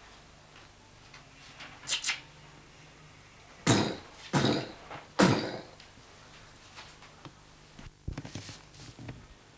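Three loud, sharp bangs, about three-quarters of a second apart, each cutting in suddenly and dying away fast. Lighter knocks come near the end.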